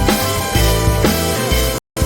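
Background rock music with drums and a steady beat, cutting out to silence for a split second near the end.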